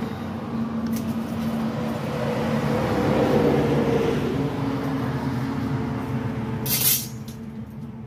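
A motor vehicle's engine running, a steady low hum with a tone that swells about three seconds in and eases off, and a short sharp hiss about seven seconds in.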